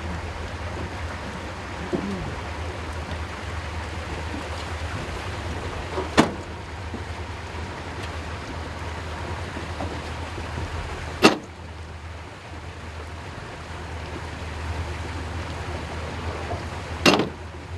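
A steady low engine hum with a rushing hiss, broken by three sharp knocks about five seconds apart.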